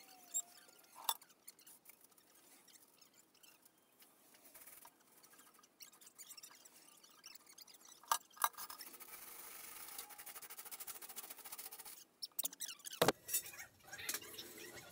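Faint scattered clicks and squeaks of a truck cab and frame being shifted by hand, with a steady hiss in the middle and a sharp knock near the end.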